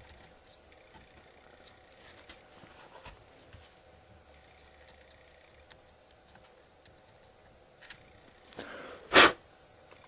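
Faint scattered clicks and rubbing as a small DC motor is pressed by hand into a 3D-printed plastic mount, then one short, sharp, loud sound about nine seconds in.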